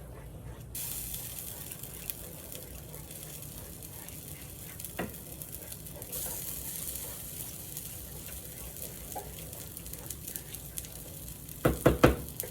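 A pot of creamy pot pie sauce heating on the stove, hissing steadily, thickened with a little flour. Near the end a spoon knocks sharply against the pot several times in quick succession.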